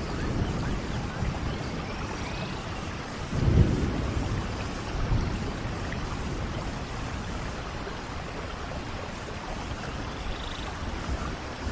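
Steady rain falling in a rainforest thunderstorm, with a roll of thunder rumbling up about three and a half seconds in and fading away.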